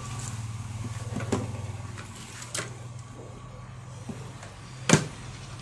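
Handling noise as the camera and multimeter are repositioned on the workbench: a steady low hum with a few light clicks and knocks, the sharpest one near the end.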